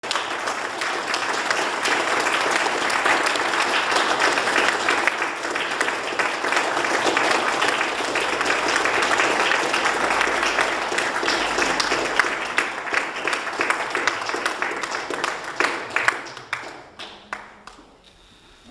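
Audience applauding, thinning to a few scattered last claps near the end.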